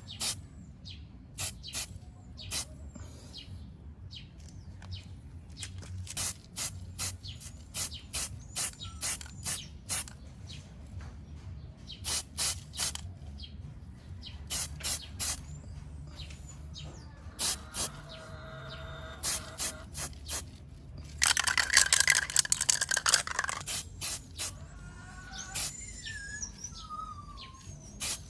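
Aerosol can of primer sprayed in many quick, short bursts, misting a very light first coat. Birds chirp throughout, with a loud two-second burst of bird calls about 21 seconds in.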